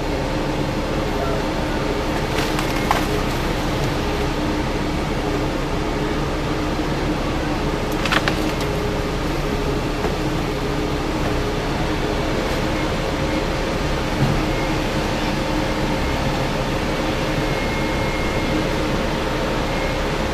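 Heavy diesel engine running steadily with an even hum, with a few short sharp knocks or cracks scattered through.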